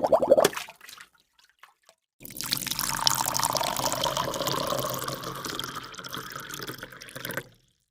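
Water pouring steadily for about five seconds, starting about two seconds in and stopping shortly before the end, after the brief tail of a rhythmic pulsing effect.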